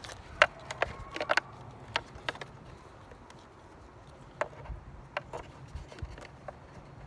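Scattered light clicks and taps of small screws and plastic parts being handled on a 2005 Acura RL side-mirror assembly. They come several in quick succession about half a second to a second and a half in, then more sparsely.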